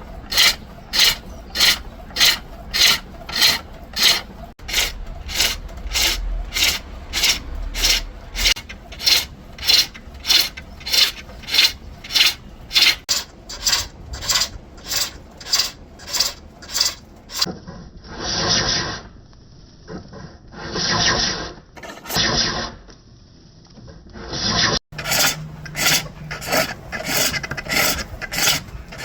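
Turning tool cutting a green wood bowl on a foot-powered pole lathe: a short scraping cut on each downstroke of the treadle, about two a second. For several seconds in the later part the cuts come slower and longer, then the quick rhythm returns.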